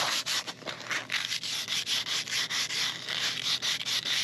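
Sandpaper rubbing back and forth along a quarter-inch wooden dowel, hand-sanding it to smooth the rough edges left by rotary-tool roughing. The strokes are quick and regular, about four a second.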